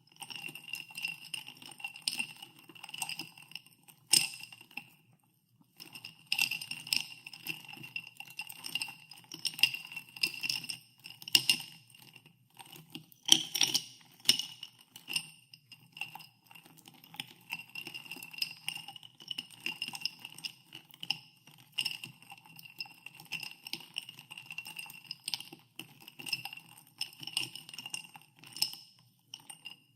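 Ice cubes stirred in a glass of soda water, clinking irregularly against the glass, which rings after each strike. There is a short pause about five seconds in, and the loudest clinks come at about four and at about thirteen and a half seconds.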